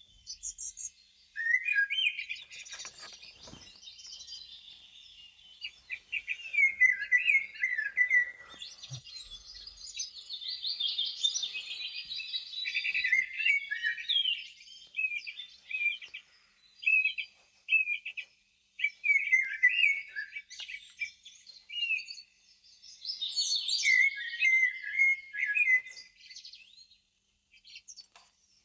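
Birdsong: quick, high chirping and twittering phrases, with short pauses between them.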